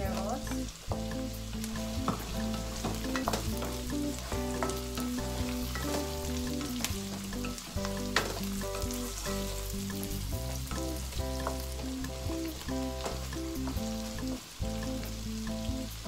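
Diced potatoes, carrots and onions sizzling in a nonstick frying pan while a wooden spatula stirs them, with scattered sharp clicks and scrapes of the spatula against the pan. Background music with steady notes changing step by step plays underneath.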